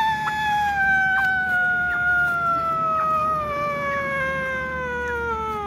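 A dog's single long howl, sliding slowly and steadily lower in pitch and dropping away near the end.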